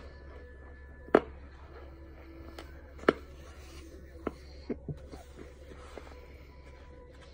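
Mouth sounds of chewing a mouthful of cornstarch: a few sharp clicks and crunches, two louder ones about one and three seconds in, and smaller ones near the middle, over a low steady hum.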